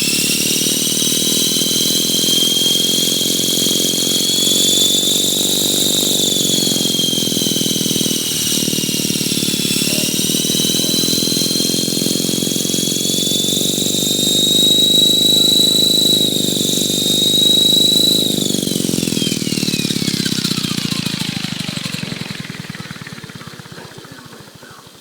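Align T-Rex 450 electric RC helicopter: a high whine with a lower buzz beneath, its pitch wandering up and down with the throttle. Over the last several seconds the helicopter spools down, the whine falling steadily in pitch and fading.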